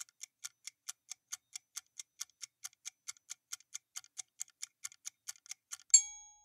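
Quiz countdown-timer sound effect: a clock ticking evenly, about four to five ticks a second. It ends about six seconds in with a single bright chime, the correct-answer signal, which is the loudest sound.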